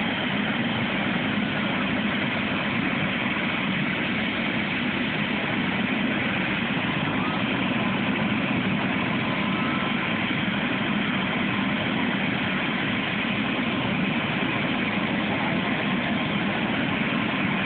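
Light helicopter with a two-bladed rotor idling on the ground before take-off: a steady drone from the turbine engine and turning rotor, with a faint steady whine above it.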